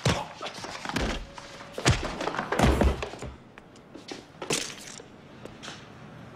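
Fist-fight sound effects: a string of punches and heavy body thuds as men are knocked to the floor. The heaviest thuds come about three seconds in, followed by a few lighter knocks.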